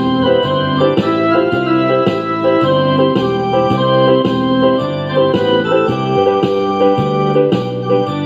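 Background music played on electronic keyboard or organ, with steady notes changing on a regular beat.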